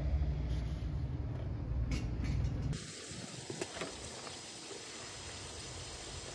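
A low steady rumble for the first few seconds, then a steel pan of minced goat meat, onion and tomato frying over a wood fire, sizzling faintly, with a few light clicks of the wooden spoon and spice bowls.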